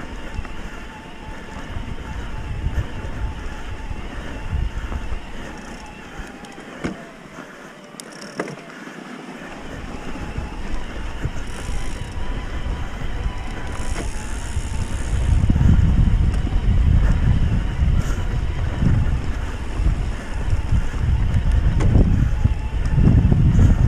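Wind buffeting the microphone of a camera on a moving electric mountain bike: a gusty low rumble that grows much louder about two-thirds of the way in. A faint steady whine runs underneath.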